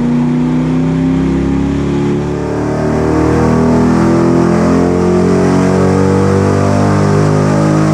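C6 Corvette's LS2 V8 running, its engine note shifting slightly and growing a little louder after about two seconds.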